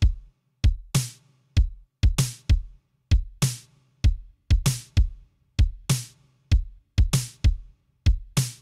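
Programmed drum loop of just a kick and a snare, playing a steady pattern of deep kick thumps and bright snare hits. The snare carries a long reverb tail from a sidechained reverb send.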